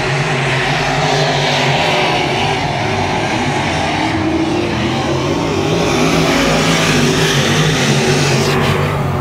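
Several dirt-track race cars running at speed around the oval, their engines loud and steady, swelling slightly a little past the middle.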